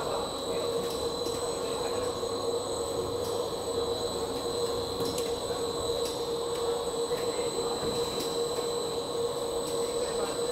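Plastic cast-film extrusion line running: a steady mechanical drone with a constant mid-pitched hum and a faint high whine.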